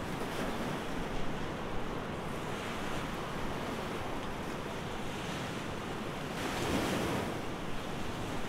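Sea water washing and wind blowing across the microphone, a steady rush that swells a little louder about seven seconds in.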